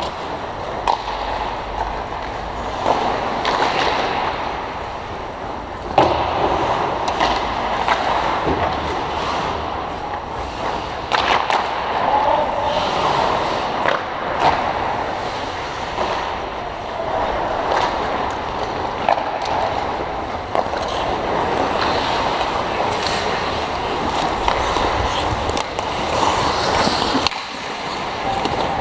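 Ice hockey play: skates scraping and carving on the ice, with sticks and puck clacking now and then and a few sharp cracks among them.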